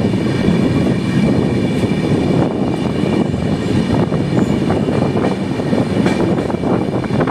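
Sachkhand Express passenger train pulling out of a station, heard from an open coach doorway: a steady rumble of wheels on the track with a few scattered clicks.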